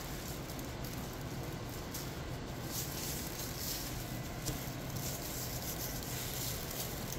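Steady sizzling hiss of mushrooms sautéing in a pan, with soft pats and rubs of raw ribeye steak being pressed into seasoning salt on a paper plate.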